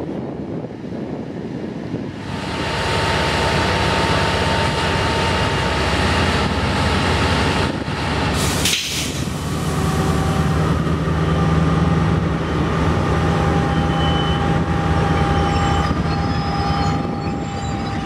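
KiwiRail EF-class electric locomotives: a steady hum with several whining tones that grows louder about two seconds in, with a short hissing burst near the middle.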